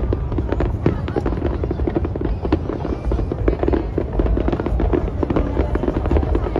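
Large aerial fireworks display with many shells bursting in quick succession: a dense stream of sharp cracks and pops over continuous low booming.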